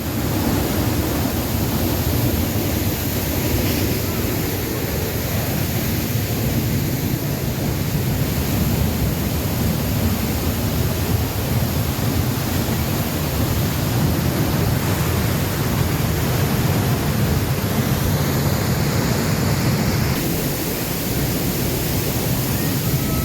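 Steady, loud rush of a waterfall's falling water, a deep, unbroken roar.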